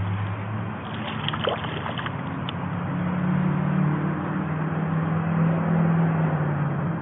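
Water trickling and sloshing against a kayak, with a few small splashes about a second in and a low steady hum underneath.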